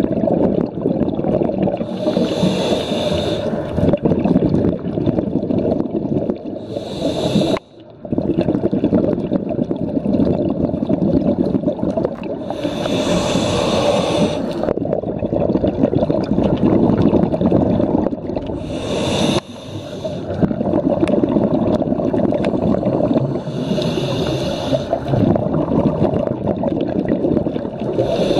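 Scuba regulator breathing heard underwater: a loud, nearly continuous bubbling of exhaled air, broken about every five seconds by a hissing inhalation lasting one to two seconds.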